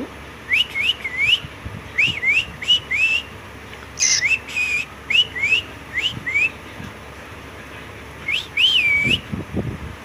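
Cockatiel whistling: clusters of short, rising whistle notes in quick runs of two to four, with a longer wavering whistle near the end.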